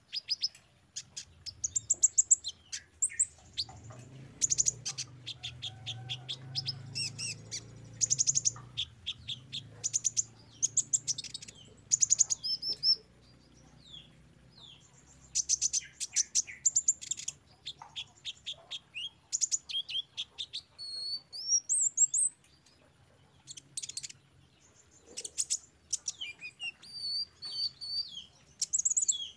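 Sunbird (the konin or 'kolibri ninja' of Indonesian songbird keepers) singing: repeated bursts of rapid, high, sharp chirping trills with short pauses between them, and some twisting whistled notes in the second half.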